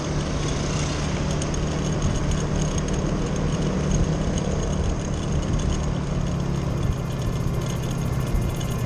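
Motorcycle engine running steadily while riding, heard from on the bike with a constant rush of wind and road noise.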